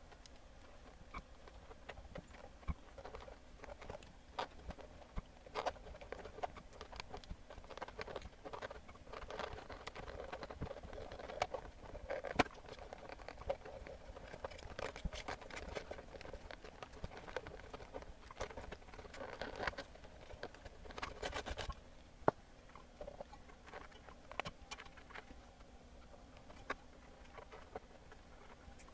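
Utility razor knife scraping and cutting the rotted old surround off a subwoofer woofer's metal basket and cone: faint, irregular scrapes and small clicks, busiest in the middle and thinning out after about two-thirds of the way through.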